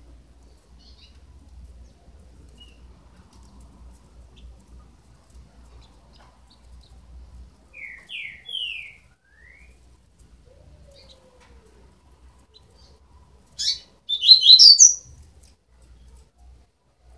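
Twelve-day-old double-collared seedeater (coleiro) chicks chirping: three short falling chirps about eight seconds in, then a louder cluster of high, rapid chirps a few seconds before the end.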